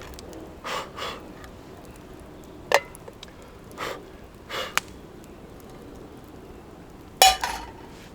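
A handful of separate knocks and clinks of hard objects being handled, the loudest near the end.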